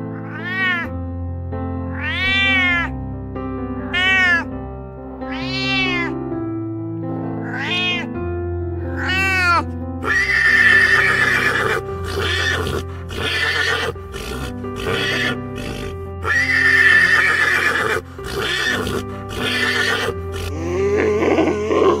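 Domestic cat meowing, about six rising-and-falling meows roughly one and a half to two seconds apart, over background music. From about ten seconds in, the meows give way to a denser, harsher animal sound over the same music.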